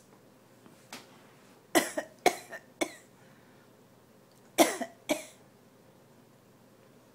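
Fake coughing in short, sharp coughs: a faint one about a second in, a quick run of four, then two more a couple of seconds later.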